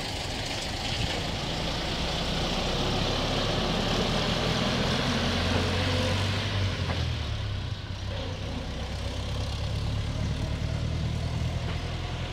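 Engine of a small rail vehicle running steadily as it moves slowly along a nearby track. It is a low hum, loudest about midway, dipping briefly and then rising again.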